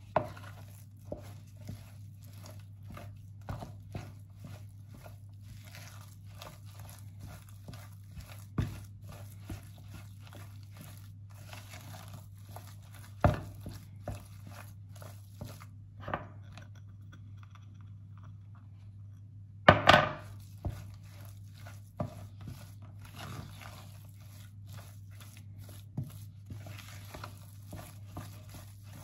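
Wooden spatula stirring a thick, sticky fish paste with tapioca starch in a bowl: soft scraping and squelching, broken by irregular knocks of the spatula against the bowl, the loudest about twenty seconds in. A low steady hum runs underneath.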